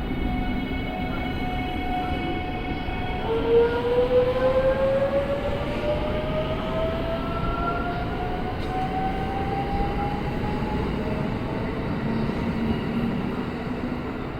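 Electric train pulling away. After a steady hum of several tones, the traction motors start a whine about three seconds in that rises slowly and steadily in pitch as the train accelerates, over a constant rumble.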